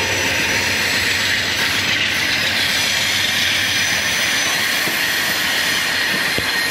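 Amtrak passenger train rolling past as it departs: steady wheel-on-rail noise from the passing baggage car and ALC-42 Charger locomotive, with the lead P42 diesels under power ahead.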